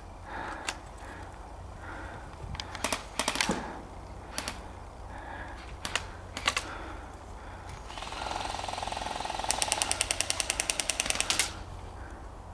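Airsoft electric gun firing a full-auto burst: a motor buzz, then a rapid, even run of shots at about ten a second for about two seconds, cut off sharply near the end. Before it, scattered single sharp pops of shots.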